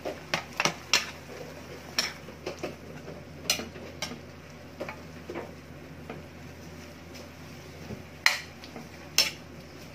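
Metal spatula stirring chopped squash and chayote in an aluminium wok, scraping and clinking against the pan at irregular moments. The clinks come thick in the first few seconds, then two louder ones near the end.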